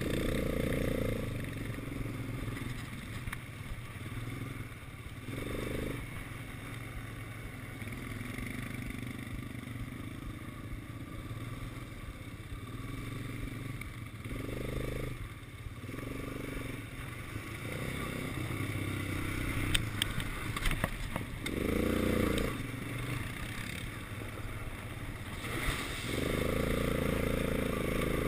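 Quad bike engine running under way on a dirt track, its revs rising in several swells as the throttle is opened. A few sharp knocks come about twenty seconds in as the bike goes over rough ground.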